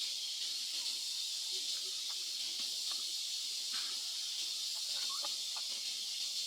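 A steady high hiss throughout, with a few faint short squeaks about two, four and five seconds in.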